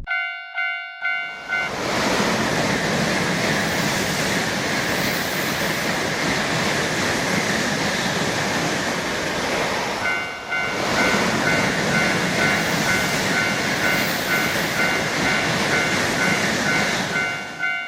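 Japanese railroad crossing bell clanging in a quick repeated beat, then a train rushing past as a loud, steady rushing noise from about a second in. The noise dips briefly about halfway through, and the crossing bell is heard clanging again over the passing train.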